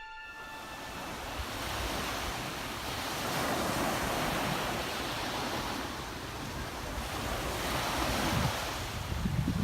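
Sea waves breaking and washing onto a sandy beach: a steady rush of surf that swells and eases.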